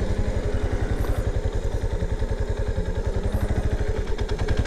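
Yamaha Serow 250's single-cylinder four-stroke engine running steadily at low revs, an even, rapid beat of firing pulses.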